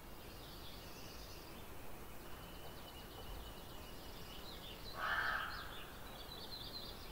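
Faint natural outdoor ambience with small birds chirping, and one louder bird call about five seconds in.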